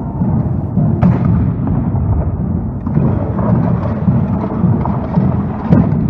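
Reenactment cannon and musket fire. One sharp, loud report comes about a second in and another near the end, with a scatter of smaller pops in between, all over a continuous low rumble.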